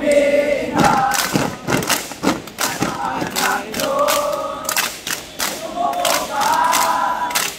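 A troop of boy scouts shouting and chanting a campfire yell together, with sharp thumps between the chanted lines.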